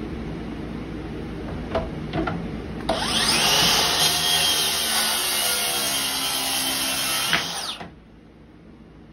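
A cordless Makita track saw starts about three seconds in and rips a plywood panel along its guide rail for about five seconds, then cuts off abruptly. Before it starts there is a low steady rumble and a couple of clicks.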